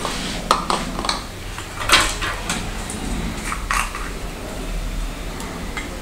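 Flushing liquid poured from a plastic bottle into a stainless-steel flushing canister, with a few sharp knocks and clinks of the bottle against the metal canister, the loudest about two seconds in.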